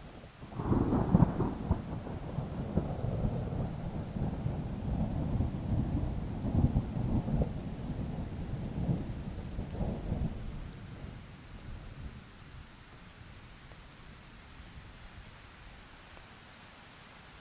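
A thunderclap breaks about half a second in and rolls on as a low, crackling rumble for about ten seconds before fading away, over a faint steady hiss of rain.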